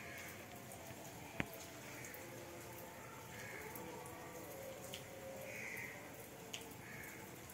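Light rain falling, with water dripping and scattered drops ticking on a hard surface; one sharp click about a second and a half in.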